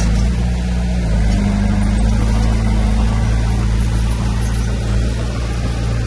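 Heavy diesel engine of earthmoving equipment running steadily under load, its note stepping up slightly about a second in.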